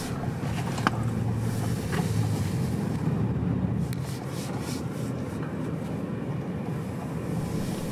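Road noise inside a moving car's cabin: a steady low rumble of engine and tyres, with a faint click about a second in.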